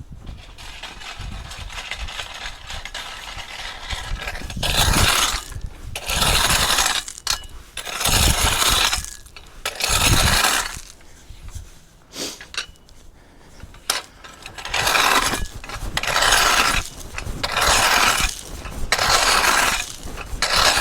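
Gravel being raked and scraped with a hand tool in repeated strokes, about ten of them, each lasting about a second, starting about four and a half seconds in.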